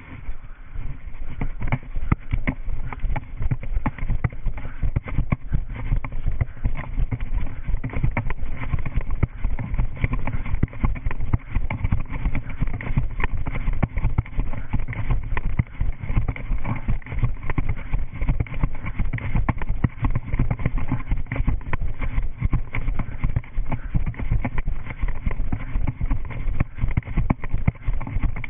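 Running footfalls on grass, heard as a steady muffled thudding through a body-worn GoPro Hero 3 in its waterproof housing, which jolts and rubs with each stride. It is quieter for the first half-second and picks up as the running starts.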